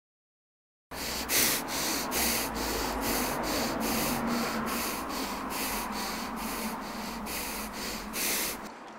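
Rhythmic rasping strokes, nearly three a second, over a low hum, starting about a second in and stopping near the end.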